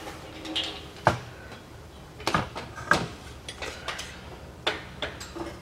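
A scattering of sharp clicks and light knocks at irregular intervals, the loudest about a second in and two more between two and three seconds in.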